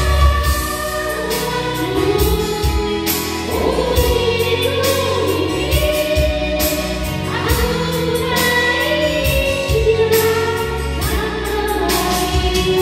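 A woman singing into a handheld microphone, holding long notes with vibrato, over backing music with a steady beat and bass.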